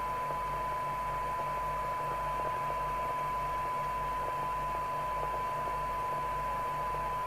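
Harrier CBX FM CB radio's loudspeaker reproducing a steady 1 kHz test tone received from a signal generator, the standard tone for a receiver SINAD check during alignment. Some hiss sits around the tone, with a low, evenly pulsing hum underneath.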